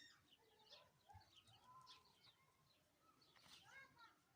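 Faint birdsong: several small birds chirping and twittering in quick, scattered short calls.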